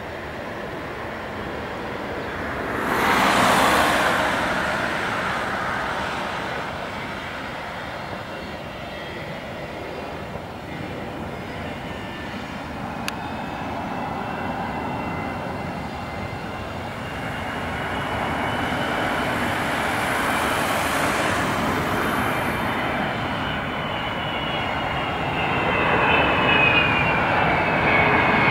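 Airbus A330-300 airliner on final approach, its jet engines growing louder as it nears, with a high whine that wavers in pitch through the second half. A brief rush of noise comes about three seconds in.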